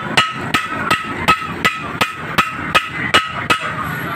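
Hammer striking metal in a steady rhythm, about three blows a second, each blow with a short metallic ring.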